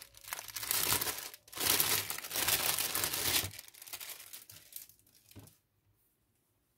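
Clear plastic bag crinkling as it is handled and pulled off a small fabric wrestling mask, in two loud stretches over the first three and a half seconds. It then dies down to a few light rustles and stops about five and a half seconds in.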